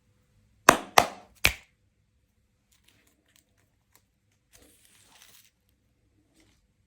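Three sharp clacks of hard candy packaging being handled, about a third to half a second apart, followed a few seconds later by faint crinkling of wrapper.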